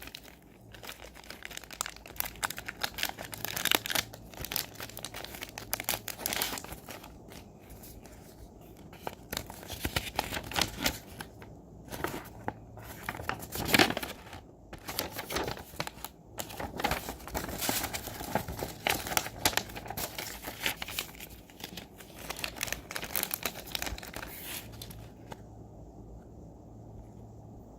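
Toy packaging crinkling and rustling as it is handled and opened, in irregular bursts with sharp clicks. The rustling dies down about 25 seconds in.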